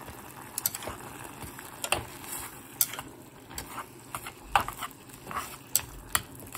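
Chopsticks stirring sliced pork and onion in a granite-coated pot, clicking and scraping against the pot in quick, irregular taps.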